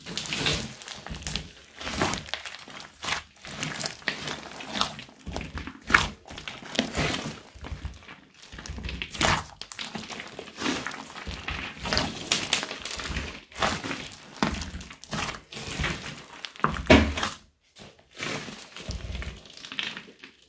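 A large mass of mixed slime studded with foam beads being kneaded and squeezed by hand: irregular squishing full of small pops and clicks.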